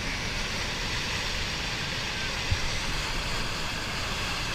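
Steady rushing rumble of a rock slide coming down the mountain, the sound that resembles a plane passing overhead, with a single thump about two and a half seconds in.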